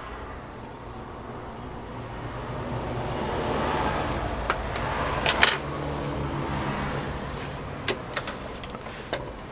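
Small steel parts clinking on metal while a Bosch starter motor is stripped: a loud clatter about halfway through and a few light clicks near the end, over a faint low hum.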